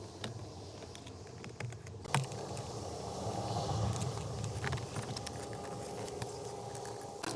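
Scattered light clicks and knocks of hand work on a car door, with one louder knock about two seconds in, over a steady low hum.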